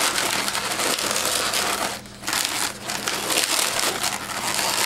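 Inflated latex 260 modelling balloons rubbing and scraping against each other and the hands as they are twisted and locked together. The sound is a dense, scratchy rubbing with a short lull about two seconds in.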